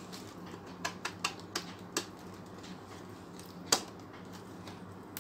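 Light plastic clicks and taps of the two speaker housings being handled and fitted end to end into a soundbar, with a sharper click about three and a half seconds in.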